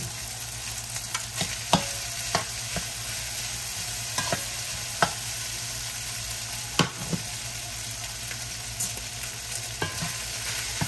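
Shrimp, vegetables and rice frying in a hot nonstick skillet with a steady sizzle, broken by scattered sharp taps and scrapes of a spatula and pot against the pan as the rice is added and stirred in.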